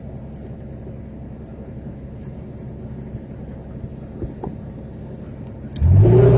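Excavator's diesel engine running at a steady low idle, with a few faint clicks. Near the end it revs up sharply: the low note rises and a steady higher whine joins in.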